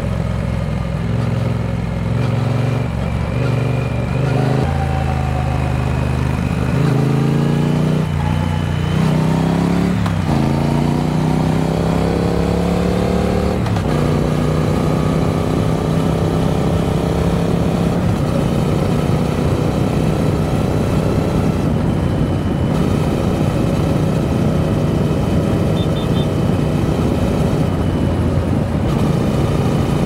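Triumph Speed Twin 900 parallel-twin engine under way. About a third of the way in, its pitch rises in several steps as it pulls up through the gears. It then holds a steady cruising note.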